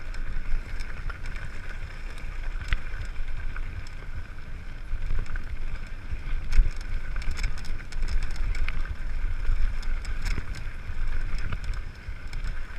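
Mountain bike rolling down a dirt and gravel track, with wind buffeting the microphone over a constant tyre rumble. Scattered sharp clicks and rattles come from the bike over bumps.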